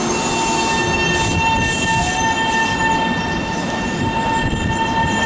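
Taiwan Railway EMU700 electric multiple unit rolling along the platform as it arrives, with steady rumbling rail noise and a steady high-pitched whine that sets in at the start.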